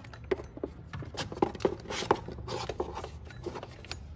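Rubber serpentine belt being pulled off and out from around the engine's accessory pulleys by hand, rubbing and scraping against the pulleys with a string of light clicks and knocks.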